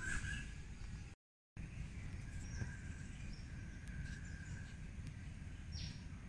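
Outdoor ambience of small birds chirping faintly over a steady low rumble, with a few short high calls, one falling in pitch near the end. The audio cuts out completely for a moment about a second in.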